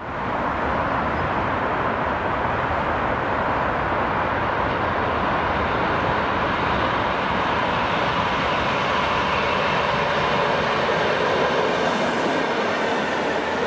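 ED4M electric multiple unit train approaching and running past on the track, a steady rush of wheel and rail noise that fades in at the very start.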